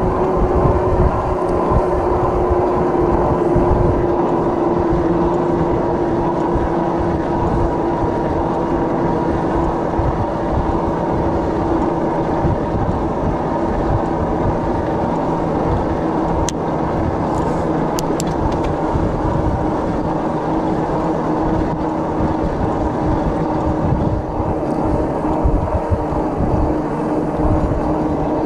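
Wind buffeting the microphone of an electric bike riding at speed, over the steady whine of a Rad Power Bikes e-bike's hub motor. The whine falls slightly in pitch as the bike slows.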